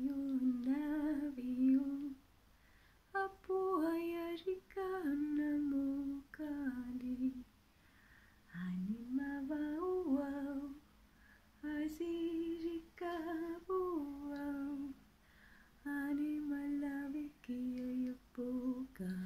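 A woman's voice humming a slow wordless melody in phrases of a few seconds each, with short pauses of about a second between them.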